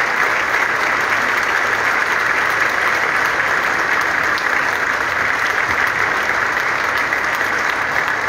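Audience applauding: a steady, sustained round of clapping from a large crowd in a hall.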